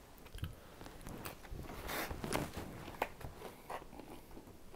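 A person chewing a mouthful of thick, airy pizza crust: a run of soft, irregular mouth clicks and smacks.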